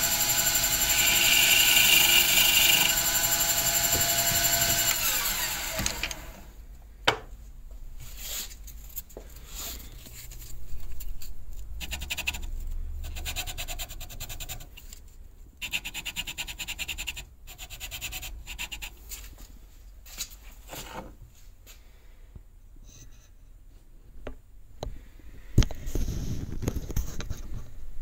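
Small metal lathe running with a steady whine, then winding down and stopping about six seconds in. After that, sandpaper rubbing against the layered pig-skin leather cue tip in irregular strokes, with occasional clicks and a knock near the end.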